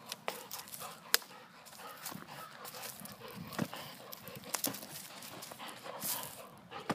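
A dog scuffling with a basketball on pavement: scattered clicks and scrapes from claws and the ball, with one sharp click about a second in.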